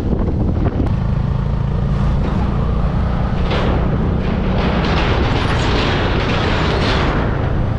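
Bajaj V15's 150cc single-cylinder engine running steadily while the motorcycle is under way. From about three and a half seconds in, a louder rushing noise joins as the tyres run across a steel truss bridge deck, fading again near the end.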